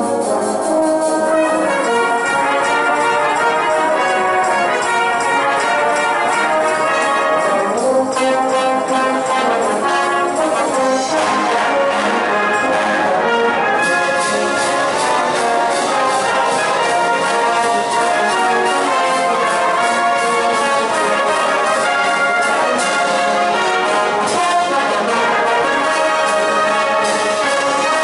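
Massed brass bands playing live together: a full, loud brass-band sound of cornets, trombones and tubas.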